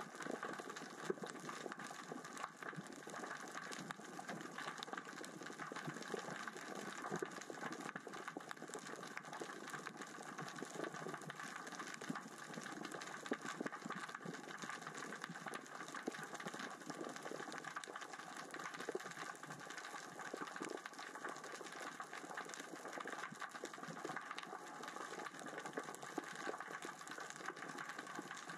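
Underwater crackle of small rocks rolling across the sea floor, moved by the current and tide: a steady, dense patter of tiny clicks.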